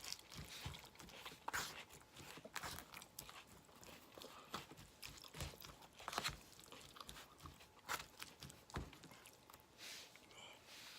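Close-up chewing and mouth sounds of someone eating a mouthful of burrito bowl, with irregular soft clicks and smacks.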